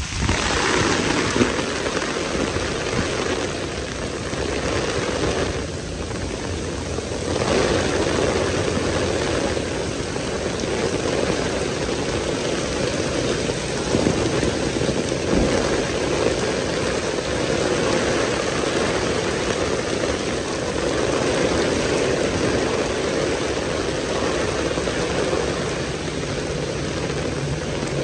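Heavy downpour: a steady, dense rush of rain pelting the wet street and pavement, swelling a little now and then.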